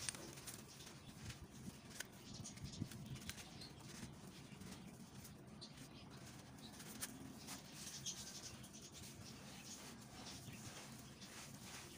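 Faint wet, gritty crunching of a soaked sand-cement block being squeezed and crumbled by hand in a tub of muddy water, with scattered small crackles of breaking grit.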